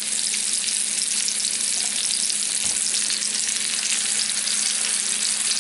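Seasoned chicken breasts frying in hot fat in a cast-iron skillet: a steady, crackling sizzle.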